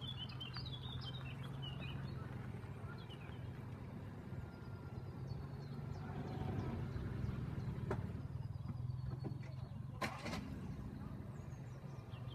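Outdoor ambience: a steady low hum with birds chirping, most busily in the first second, and two sharp knocks, about eight and ten seconds in.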